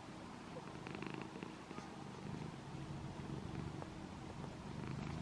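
Cat purring steadily, a low continuous purr, while newborn kittens nurse at the mother cat's belly. A few faint clicks about a second in.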